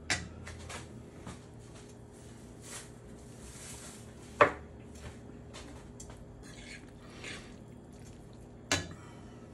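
Fork tossing bucatini in a thick, creamy carbonara sauce in a frying pan: soft wet squelching, with three sharp taps of the fork against the pan, the loudest about halfway through.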